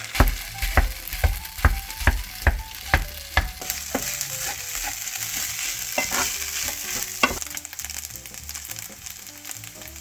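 Dumpling fried rice sizzling in a frying pan while a spatula stirs and chops it. The spatula knocks against the pan about two or three times a second at first, then more sparsely.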